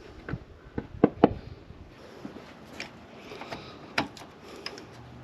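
A few sharp clicks and knocks, the loudest pair about a second in and another near four seconds, as a funnel is pulled from the coolant filler neck and the filler cap is put back on.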